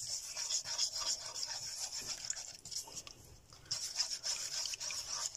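Wooden stick stirring glue as it thickens into sticky slime in a nonstick pan, making uneven wet scraping strokes that ease off for a moment about halfway through.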